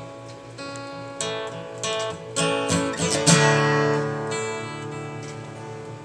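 Acoustic guitar played solo, picked and strummed chords. The hardest strum comes about halfway through and is left ringing, slowly dying away.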